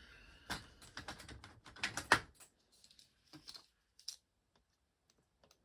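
Hands handling and opening a cardboard figure box: a quick run of light clicks, taps and scrapes over the first couple of seconds, then a few scattered clicks.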